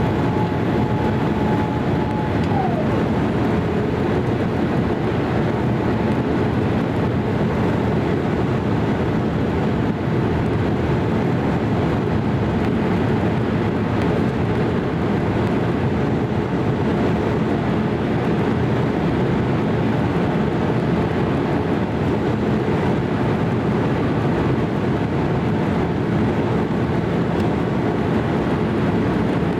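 Steady cabin noise inside a Boeing 787-8 airliner from a window seat: an even rush of airflow and Rolls-Royce Trent 1000 engine noise, with a faint whine that drops in pitch about two and a half seconds in.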